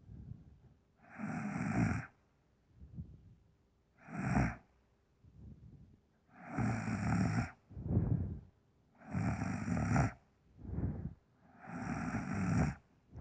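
A woman snoring heavily in her sleep. Five loud snores about two and a half seconds apart, each lasting up to a second, with quieter breaths in between.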